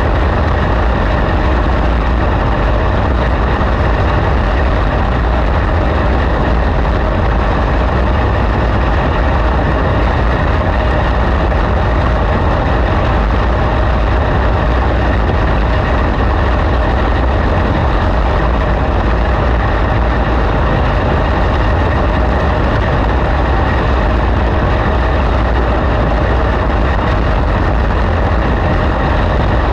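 Engine of a winged dirt-track race car running at speed, heard from the onboard camera as a loud, steady drone mixed with wind rush, with no clear changes in pitch.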